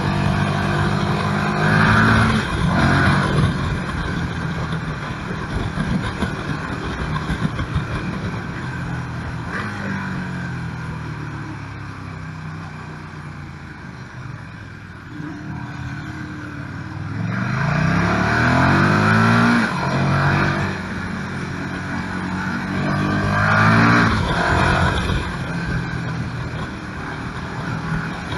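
KTM 1290 Super Duke R's V-twin engine, heard onboard, pulling hard in rising bursts about two seconds in, again around three-quarters of the way through and once more near the end. It runs quieter and lower in between, most of all around the middle.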